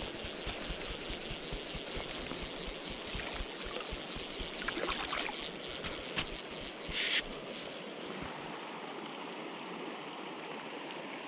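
River water running steadily, with wind buffeting the microphone. A bright high hiss over it stops suddenly about seven seconds in.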